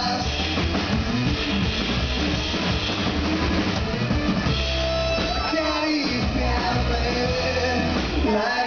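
Rock band playing live: electric guitars over a drum kit.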